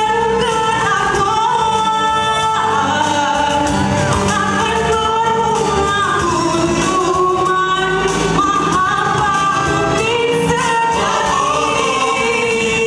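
Nasyid vocal group singing a song in several-part harmony, with musical accompaniment and a steady beat.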